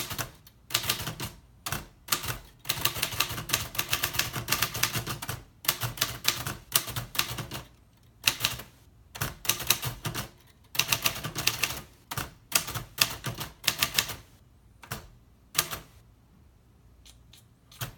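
1949 Royal Quiet De Luxe manual typewriter being typed on in quick runs of keystrokes with short pauses between runs; near the end the strikes thin out to a few single ones.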